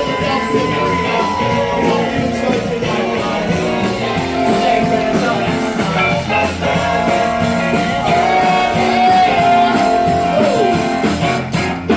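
Background music: a rock song with singing, guitar and a steady beat.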